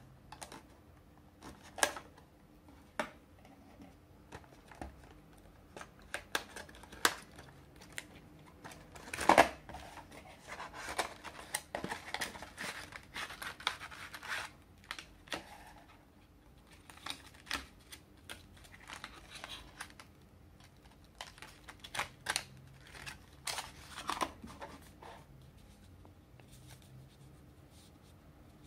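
Hands opening a small cardboard retail box: a knife blade slits the clear plastic seal sticker, then a fingernail picks and peels at it, giving scattered clicks, scratches and crinkles of cardboard and plastic. The loudest scrape comes about nine seconds in.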